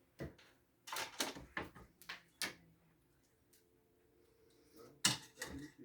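A cat's paws knocking and thudding on wall-mounted cat shelves as it jumps and runs after a toy: a quick run of sharp knocks in the first couple of seconds, then a pause, then one louder knock about five seconds in.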